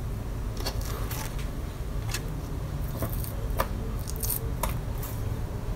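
A sushi knife slicing pork loin on a plastic cutting board: several short, sharp taps and scrapes at uneven intervals as the blade meets the board and the slices are pushed aside, over a steady low hum.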